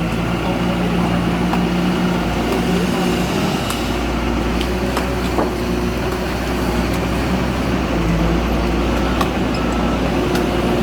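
Heavy diesel engine of construction machinery running steadily under load, a low rumble with a steady drone. A few sharp clicks or knocks come through at scattered moments.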